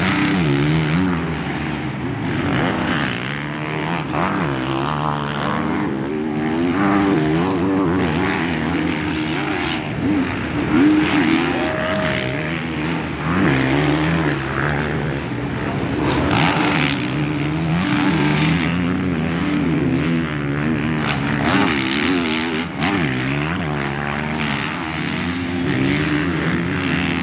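Several four-stroke motocross bikes on the track, their engines revving up and dropping off again and again as they shift and throttle, with two or more engine notes overlapping at different pitches.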